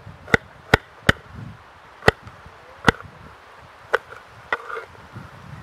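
Kitchen knife dicing an onion on a cutting board: about seven sharp, irregularly spaced taps as the blade strikes the board.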